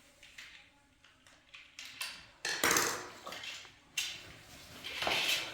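Pots and dishes knocking and clinking together in a series of sharp clatters, the loudest about two and a half seconds in.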